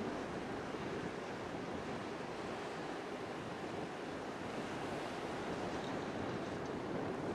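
Steady rush of sea surf and wind off choppy open water, with no distinct engine or other events standing out.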